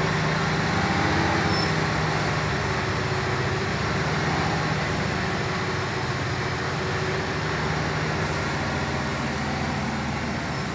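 MAN TGS 6x6 truck's diesel engine running steadily with a low, even hum, heard from inside the cab along with road noise.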